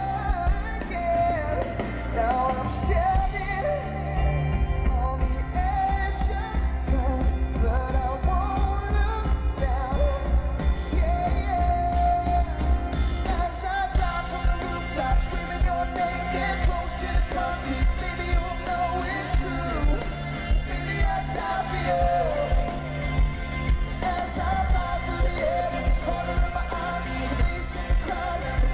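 A pop-rock band playing live: sung vocals over electric and acoustic guitars, a steady drum beat and heavy bass, heard from the audience.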